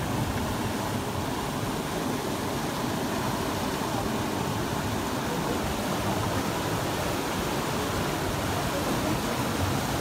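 Small waterfall cascades: water rushing and splashing steadily over rock steps into a pool.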